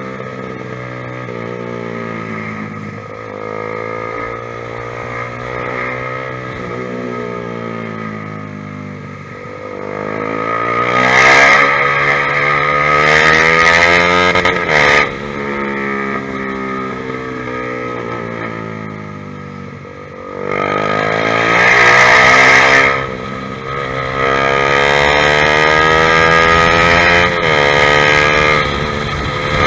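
Honda CBR150R's single-cylinder four-stroke engine through a ProLiner TR1-R aftermarket exhaust, its pitch rising and falling as it is ridden. It rises hard twice, about ten and twenty seconds in, each time ending in a sudden drop in pitch, then holds steady at high revs near the end.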